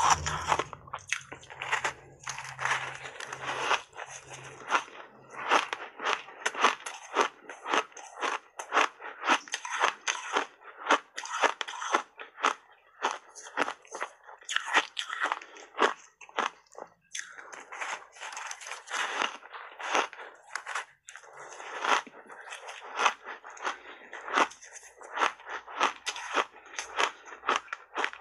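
Close-miked crunching of block ice coated in matcha powder being bitten and chewed, many irregular crunches a second with short gaps between bites.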